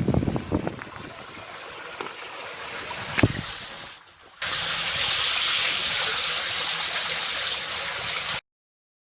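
Water gushing and splashing unevenly, then a steady, loud rush of running water that cuts off suddenly.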